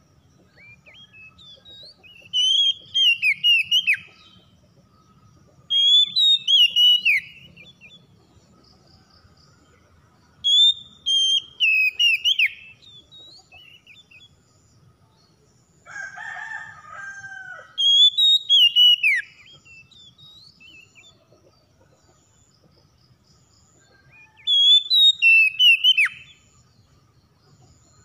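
Oriental magpie-robin singing: five loud, short phrases of whistled notes that sweep up and down, each about a second and a half long, separated by pauses of a few seconds. Between the third and fourth phrases comes a lower, harsher call of about a second and a half.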